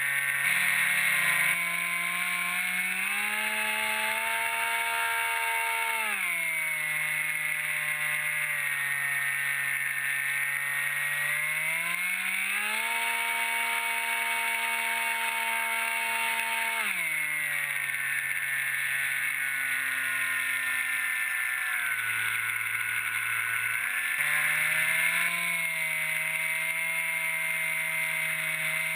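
Electric motor and propeller of a foam-board flying wing running, its whine rising and falling with the throttle. The pitch climbs after about two seconds and drops around six seconds. It climbs again near twelve seconds and drops near seventeen, dips briefly around twenty-two seconds, then climbs once more.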